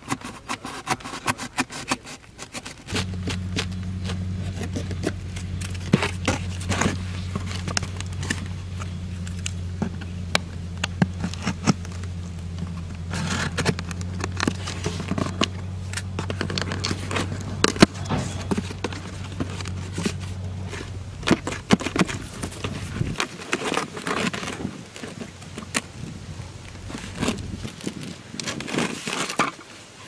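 Utility knife cutting through cardboard, then the cut cardboard being bent and handled: irregular scrapes, crackles and clicks. A steady low hum runs underneath from about three seconds in until about seven seconds before the end.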